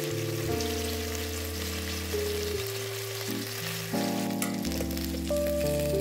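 Food frying and sizzling in a pan under background music with held notes, and a single sharp click about four and a half seconds in.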